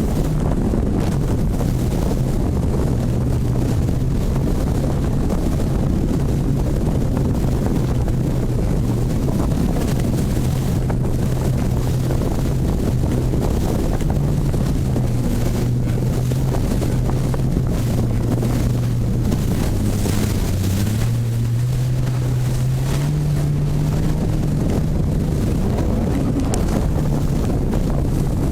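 Boat engine running steadily under a haze of wind on the microphone; its pitch dips a little and then rises in steps about 20 seconds in, as the throttle changes.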